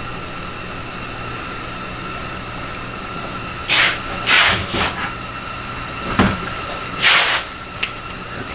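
Several short blasts of compressed-air hiss, from an air gun, over a steady machine hum with a faint whine.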